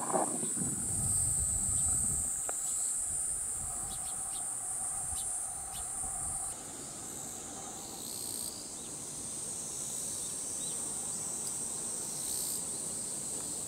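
Steady high-pitched drone of summer insects, cicadas by the season and setting, with a low rumble in the first couple of seconds. The drone shifts a little about six and a half seconds in.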